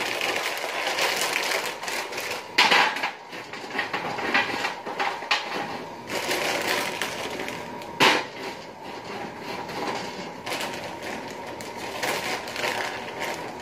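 Kitchen handling noises: a few sharp knocks and clatters, the loudest about three and eight seconds in, over a steady hiss.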